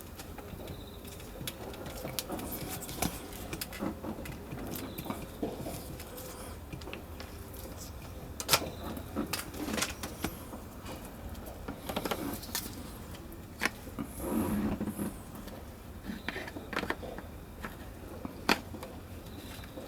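Scattered clicks and knocks, as of things being handled, over a low steady hum. The loudest knocks come about a third of the way in and near the end.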